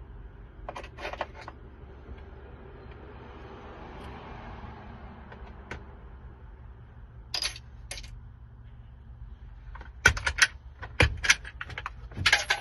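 Small metal clicks and clinks of lock parts and keys being handled while a lock is rekeyed: a few quick clicks about a second in, two more past the middle, and a louder run of clicks in the last three seconds.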